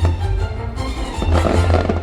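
Loud fireworks-show soundtrack music, with deep booms of fireworks bursting underneath and a few sharp cracks near the start.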